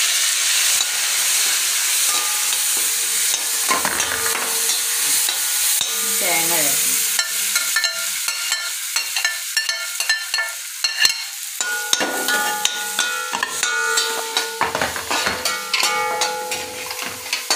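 Onions, curry leaves and green chillies frying in oil in a large metal kadai, sizzling loudly and fading after about seven seconds. From then on cooked rice is stirred in with a metal ladle that scrapes and knocks against the pan, making the pan ring.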